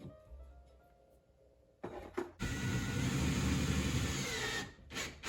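Power drill running in one steady burst of about two seconds, after a couple of light clicks, then stopping: driving a screw to mount a wall bike rack.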